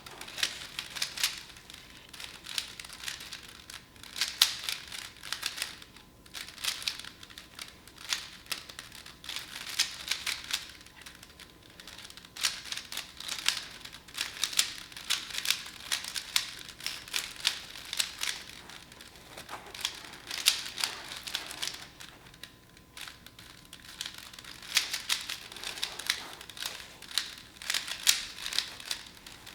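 Rubik's Cube being turned fast by hand: rapid clicking and clacking of the plastic layers in flurries, with brief pauses every several seconds.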